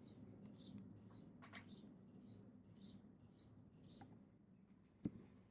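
Bittle X robot dog's head-pan servo whining in short, faint, high chirps, about two a second, as the looping program swings the head back and forth. The chirps stop about four seconds in, and a single click follows a second later.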